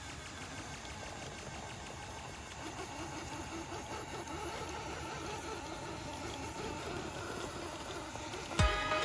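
Scale RC crawler's small electric motor and drivetrain whirring unevenly as it crawls over the trail. Music cuts in loudly near the end.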